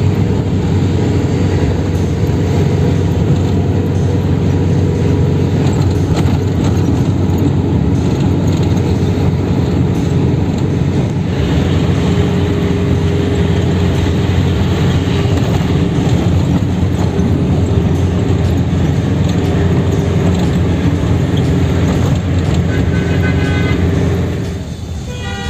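Steady road rumble inside a moving car's cabin, from the engine and tyres. It drops slightly about a second before the end.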